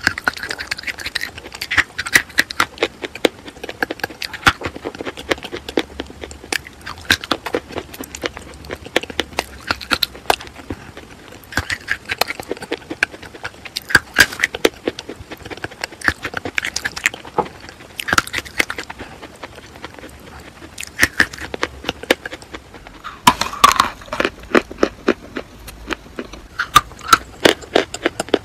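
Close-miked crunching of white school chalk being bitten and chewed, an uneven run of sharp crackles and snaps several times a second, with a louder burst of snaps a little past three quarters of the way through.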